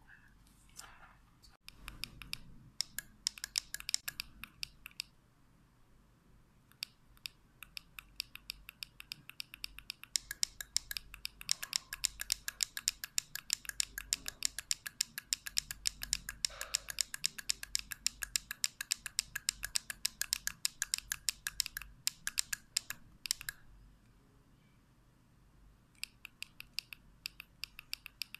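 Small sharp clicks of the push buttons on two digital luggage scales, pressed again and again. They come scattered at first, then in a fast run of about four or five a second through the middle, stop briefly, and start again near the end.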